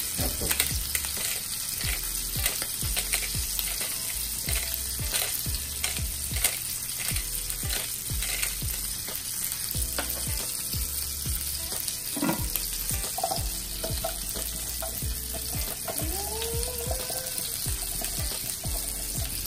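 Duck breast searing in a frying pan: its fat sizzles steadily with frequent sharp pops and crackles.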